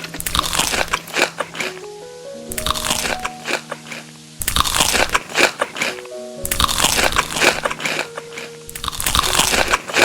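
Crisp food being bitten and chewed with loud crunching, in five bursts about two seconds apart, over background music.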